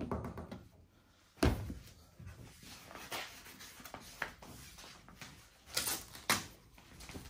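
Workshop handling noises: one sharp, loud thump about a second and a half in, then scattered small knocks and short rustles, the loudest pair near the end.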